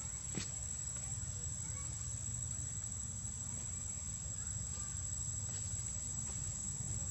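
Outdoor background noise: a low rumble with a steady high-pitched whine over it, and one sharp click about half a second in.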